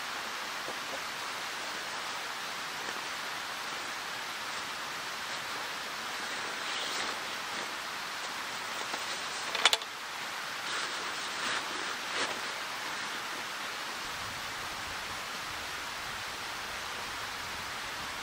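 Nylon stuff sacks and a backpack rustling as gear is packed away, with one sharp clack about ten seconds in, over a steady outdoor hiss.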